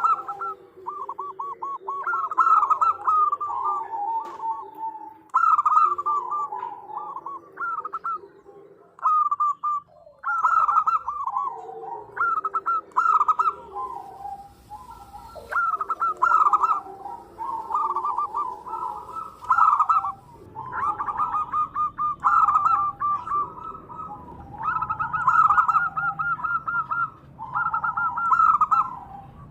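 Zebra doves (perkutut) cooing: quick, stuttering trilled phrases repeated every second or two, with a lower cooing layer underneath through the first half. It is a female's call, played as a lure to draw males.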